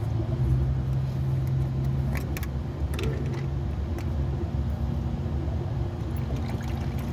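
An engine running steadily nearby, a low even hum, with a few light clicks and knocks about two to four seconds in.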